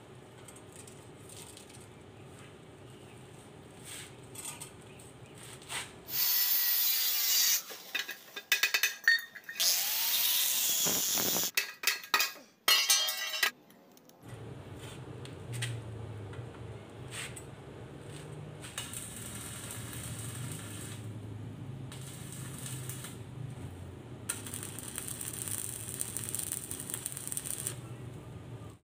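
Angle grinder working on steel, loud and in bursts with short breaks from about six to fourteen seconds in. Quieter tool and workshop noise with a low hum fills the rest.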